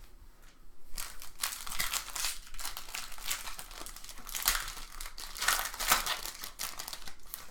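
Crinkling and tearing of a foil trading-card pack wrapper as a pack is opened and handled, in an irregular run of crackles.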